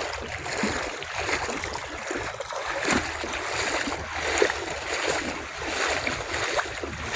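Floodwater rushing and splashing: a steady noisy wash with small splashes scattered through it.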